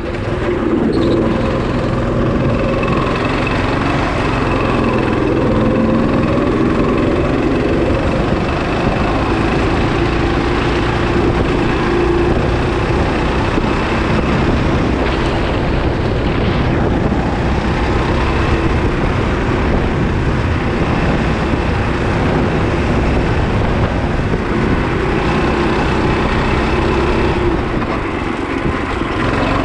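Go-kart's small engine running hard at speed, heard from the driver's seat. Its note wanders up and down a little with the throttle through the corners and eases briefly near the end.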